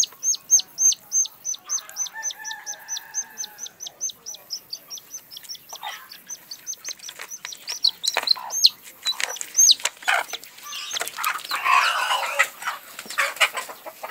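A chick peeping steadily, high falling peeps about three to four a second, with a hen's held call about two seconds in. Near the end, a burst of wing-flapping and scuffling from the village hens squabbling over the nest.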